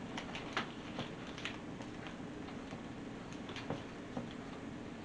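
Scattered light clicks and taps of small items in plastic baggies being handled, about ten in all, the loudest about half a second in, over a faint steady hum.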